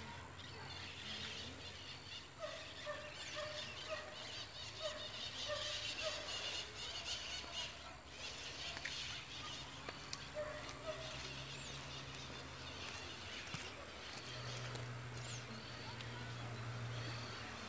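Birds calling: a run of about seven short, evenly spaced calls, roughly two a second, a couple of seconds in, another pair around ten seconds in, and high chirping over the first half.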